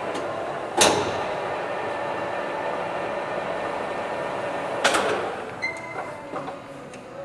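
Dainichi DLG-SHB63-150 engine lathe running with a steady hum, broken by a sharp clunk about a second in and another about five seconds in. After the second clunk the running sound drops and a few lighter clicks follow.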